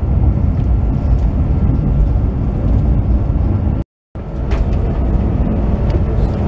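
Steady low rumble of a moving passenger train heard inside the carriage, with a brief gap of silence about four seconds in.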